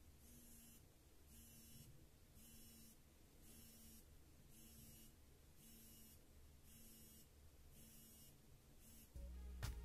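Redmi Watch 2 Lite's vibration motor buzzing faintly in short pulses, about one a second, nine times: the watch alerting to an incoming call.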